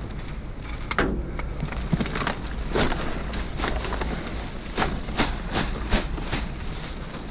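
Plastic trash bags and packaging being handled, rustling and crinkling, with a string of sharp crinkles and light knocks over a low steady rumble.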